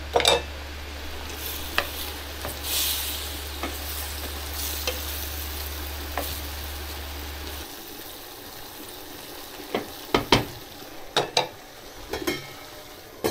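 Pork and garlic sizzling in a steel frying pan while a wooden spoon stirs and scrapes, with small clicks of the spoon against the pan. A low hum stops about two-thirds through, and a few sharper knocks near the end are the loudest sounds.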